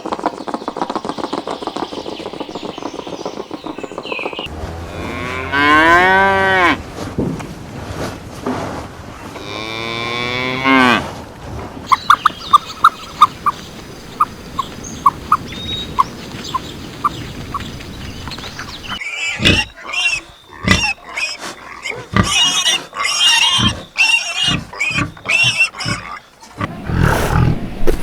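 Cattle mooing: two long moos, the first about five seconds in and the second about ten seconds in, with other short animal or farm sounds around them.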